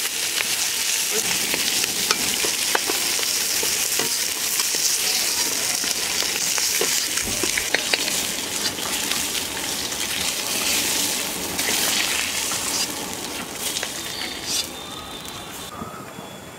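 Pieces of rohu fish sizzling as they fry in oil in an iron kadai, with scattered scrapes and clicks of a metal spatula turning and lifting them out. The sizzle dies down near the end.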